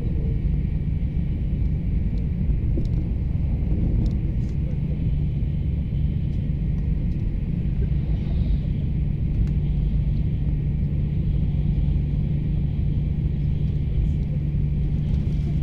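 Taiwan High Speed Rail 700T train running at speed, heard inside the carriage as a steady low rumble with a constant hum.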